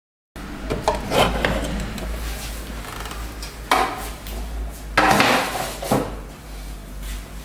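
Handling noises from repair work: knocks, clicks and scraping or rubbing of hard objects, the sharpest knocks about 1, 3.7, 5 and 6 seconds in, over a steady low hum.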